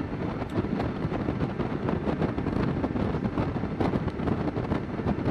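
Wind buffeting the rider's microphone on a moving motorcycle, with engine and road noise underneath.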